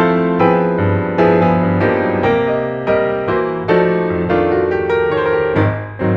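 Background piano music: a steady run of struck notes and chords, each fading before the next.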